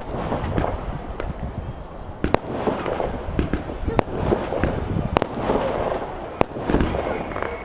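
Consumer fireworks going off at a distance: four sharp bangs, one to two seconds apart, over a continuous noisy rumble.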